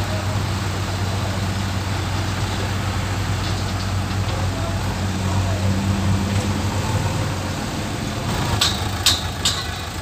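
JCB backhoe loader's diesel engine running steadily while the backhoe arm holds a slung concrete pipe. The engine hum drops away about three-quarters through, and a few sharp knocks follow near the end.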